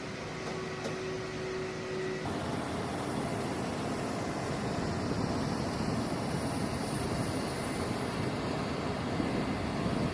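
Jet engines of a C-17 Globemaster transport aircraft running: a steady rushing noise that begins abruptly about two seconds in and slowly grows louder, with a faint high whine.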